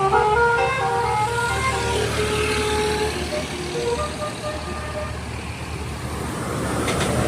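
A bus's telolet musical horn playing a quick tune of stepped notes, dying away about four seconds in, over the steady drone of a bus engine. Road noise swells near the end.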